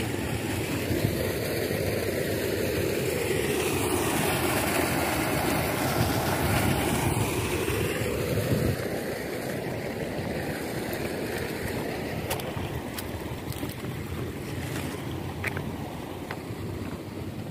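Engine of a sand-pumping rig running steadily while sand slurry is pumped into a flooded plot, somewhat louder in the first half, with a few light clicks in the second half.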